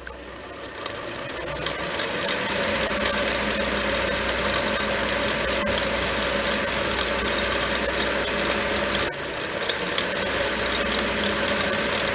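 Metal lathe starting up and running steadily, geared down to turn slowly for thread cutting, with a steady whine from its drive. It builds up over the first couple of seconds and briefly drops out about nine seconds in.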